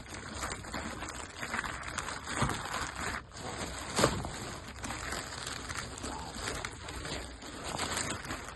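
Packaging rustling and crinkling as a parcel is unpacked and its contents handled, with a few sharp knocks, the loudest about four seconds in.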